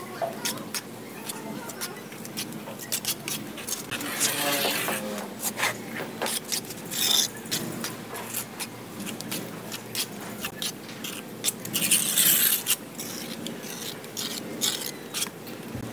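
Steel trowel scraping and tapping mortar off a mortar board and onto the top of a brick wall: many short clicks and taps, with two longer scrapes about four seconds in and about twelve seconds in.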